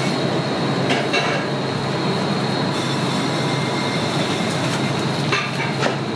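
Steady kitchen background noise: a constant rushing hum with a faint high whine running through it, and a few light clicks about a second in and again near the end.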